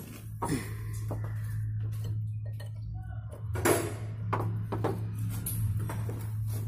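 Steel parts of a hydraulic PTO pump clinking and knocking as the bored block is worked into the pump housing by hand, a few sharp knocks with the loudest about half a second and about four seconds in. A steady low hum runs underneath.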